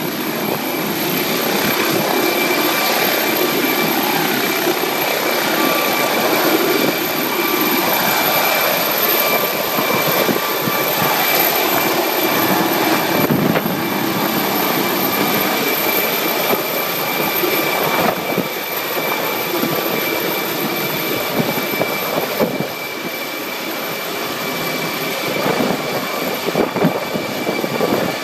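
MD 902 Explorer air ambulance helicopter lifting off and climbing away: steady loud rotor and engine noise with a constant high turbine whine. It grows somewhat quieter over the last several seconds as it gains height.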